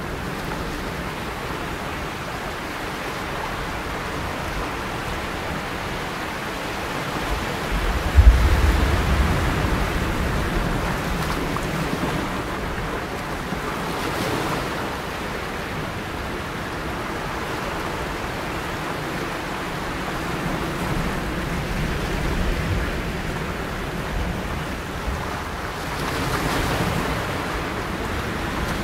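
Steady ocean water noise, like surf, with a single low thump about eight seconds in.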